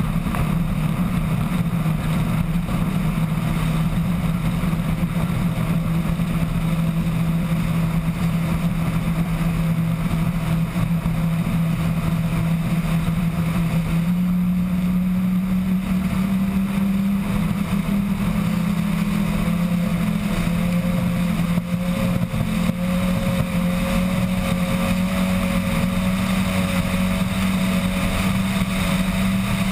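Twin Mercury outboard engines on a racing catamaran running flat out with a steady drone. The drone steps up in pitch about halfway through as the boat gains speed.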